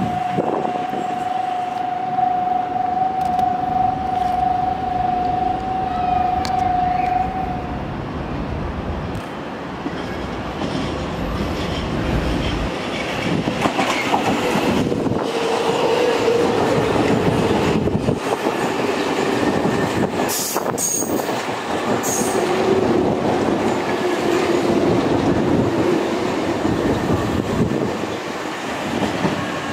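Nankai electric train running through a station at speed: the rumble of the cars and the clickety-clack of wheels over the rail joints, with thin squealing wheel tones in the second half and a few sharp clacks a little past the middle. A steady high tone sounds for about the first eight seconds.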